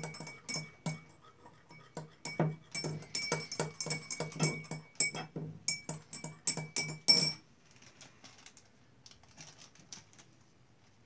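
A teaspoon clinking against the inside of a drinking glass in quick, even strokes, about three a second, with the glass ringing after each strike, as borax is stirred into water to dissolve it. The stirring stops about seven seconds in with one louder clink, leaving only faint handling.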